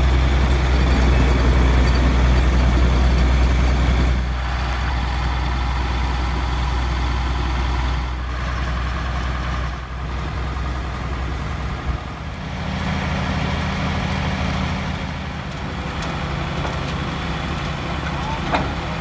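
Laverda 3600 combine harvester, converted to a straw chopper, running with its engine and machinery droning steadily. The running note drops somewhat about four seconds in and shifts a few more times, with a short click near the end.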